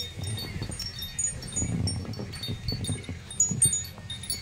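Scattered light, high-pitched tinkling, many short ringing notes in no steady rhythm, over a low irregular rumble.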